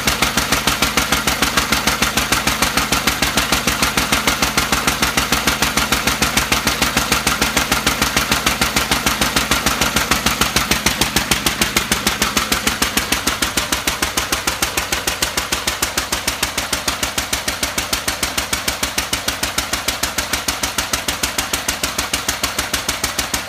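Lister Junior A single-cylinder stationary engine running steadily, with a rapid, even exhaust beat. It is running under water cooling from a full tank. The beat grows a little quieter and duller about halfway through.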